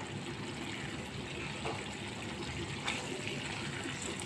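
Fish curry simmering in a nonstick pan, a steady bubbling hiss, with a couple of faint clicks from the silicone spatula as the fish pieces are turned.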